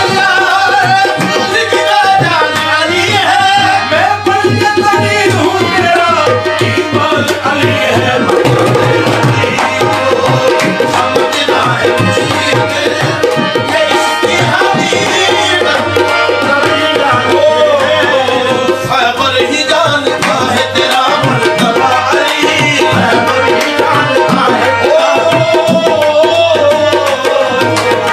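Devotional music: steady tabla drumming under a melody line that bends up and down.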